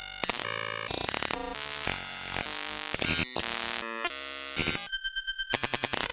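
Synthetic digital glitch noise: harsh electronic buzzes, static and stuttering tones that switch abruptly every fraction of a second, with a quick rapid-fire stutter near the end.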